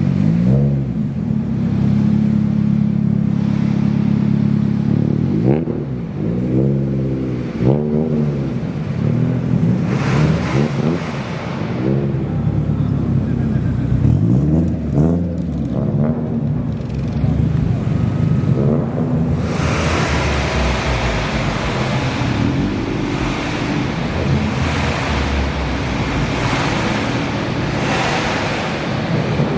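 Car engines idling, then blipped repeatedly, the pitch rising and falling with each rev. About two-thirds of the way through, a loud rushing noise joins the engine sound.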